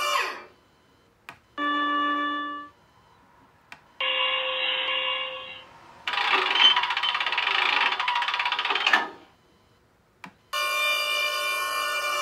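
TK-26 RC tank sound board's small speaker playing a run of sound samples with single button clicks between them: steady electronic beeping tones, a short tone over a hiss, and a noisy sound effect about three seconds long.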